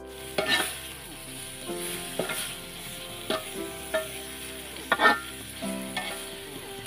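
A metal spatula stirring and scraping sliced bamboo shoots around a wok, with the sizzle of frying in oil. Sharp scrapes of the spatula against the wok come about once a second, loudest about half a second in and about five seconds in.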